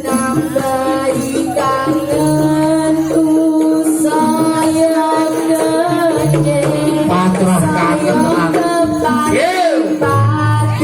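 Jaranan dance music: a Javanese folk ensemble playing a sustained melody over percussion.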